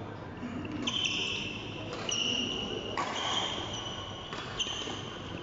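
Badminton rally: rackets striking the shuttlecock about four times, roughly a second apart, each hit followed by a short high squeak of shoes on the court floor.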